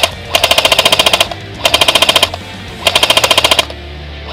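Airsoft rifle firing full-auto in short bursts of rapid, evenly spaced shots: the end of one burst right at the start, then three bursts of under a second each with short pauses between them, and a new burst starting at the very end.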